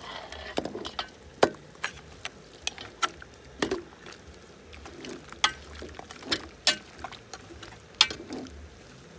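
Metal spoon stirring boiled meat in a large metal cooking pot: irregular sharp clinks and knocks as the spoon strikes and scrapes the pot, about fifteen over the span.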